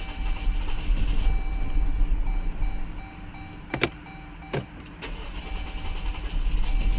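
2011 Jeep Grand Cherokee's 3.6 L Pentastar V6 running really badly and unevenly on a used engine and harness, which the mechanic suspects of bad injectors. Its sound drops away about three seconds in, with two sharp clicks, and comes up again near the end.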